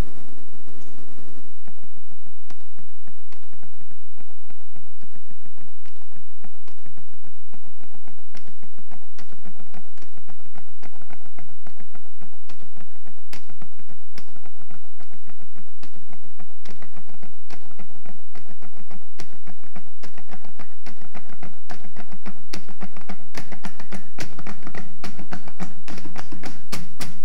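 Found-object percussion: wooden drumsticks tapping on plastic traffic cones, plastic barrels and steel bowls. The taps are sparse at first and build into a denser, fuller rhythm near the end.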